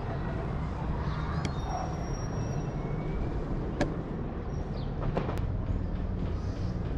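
Steady low rumble of a distant formation of military aircraft passing over a city, with faint high chirps and a single sharp click near the middle.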